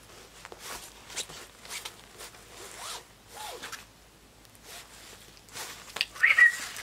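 Pembroke Welsh Corgi puppy chewing and tugging a fabric plush toy, giving faint scratchy rasps and rustles. A short high squeak comes about six seconds in.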